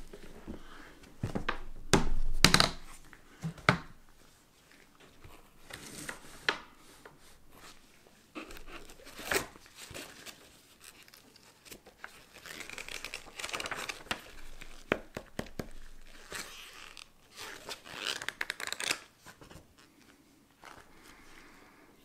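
Hard plastic carrying case being opened: its latches unclip with a few loud clacks in the first few seconds. After that comes scattered rustling and crinkling as the paper manual and a card inside are handled.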